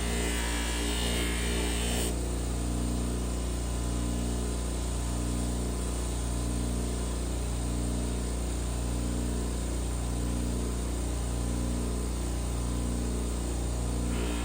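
A steady low electrical hum with a slow, regular throb about once every second and a bit. A higher hiss over it drops away about two seconds in and comes back near the end.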